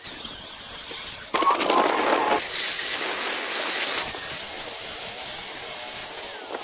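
A steady hissing noise, like air or water spraying, broken by sudden cuts into several short stretches; one stretch between about 1.3 and 2.4 seconds in is lower and busier.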